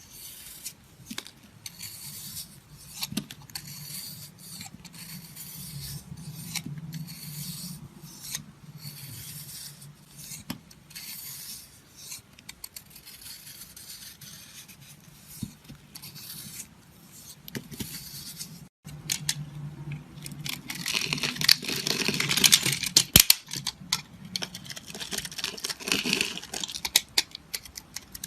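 Close-miked scraping and cutting with many crisp clicks, the kind made by a blade working a soft material such as soap or slime. About 19 s in it breaks off for an instant and goes on louder and more crackly.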